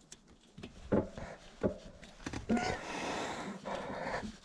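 Unsuccessful kick-start attempts on a 700cc single-cylinder two-stroke dirt bike: a few short thumps of the kick-starter about a second in and again shortly after, then a longer rushing noise, and the engine does not fire.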